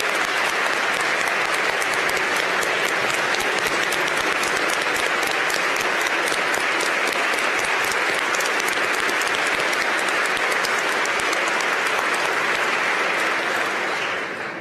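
Large audience applauding steadily, the clapping dying away near the end.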